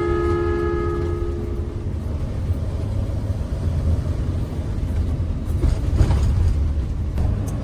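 Steady low road rumble inside a Mercedes-Benz Sprinter van driving on a rough gravel road. A two-tone vehicle horn sounds for about a second and a half at the start, and there is a single thump about six seconds in.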